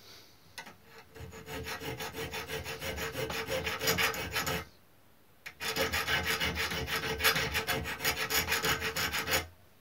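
Hand file rasping in quick short strokes across the threaded end of a small metal crank pin held in a bench vice, filing off the excess thread. The strokes come in two runs with a pause of about a second in the middle.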